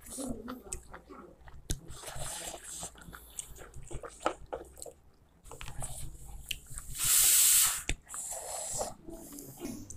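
Close-up eating sounds of a man eating rice and beef curry with his fingers: soft chewing, lip smacks and small clicks. About seven seconds in comes a loud, brief hiss of breath drawn in through the mouth.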